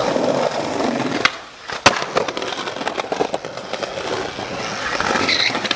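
Skateboard wheels rolling over concrete pavement, with two sharp clacks of the board about a second and a half and two seconds in.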